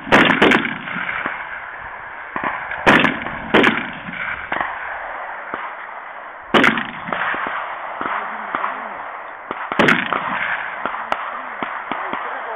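Gunshots fired one at a time on a shooting range: about six sharp cracks at irregular intervals, the first two close together, each followed by a short echo.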